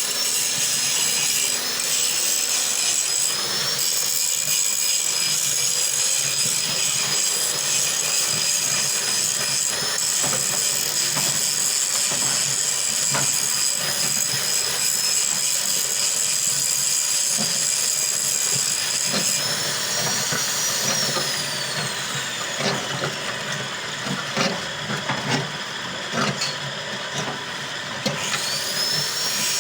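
A power machine's motor running with a steady high whine over mechanical noise. About twenty seconds in the whine winds down and the running sound drops, with scattered knocks, then the whine spins back up near the end.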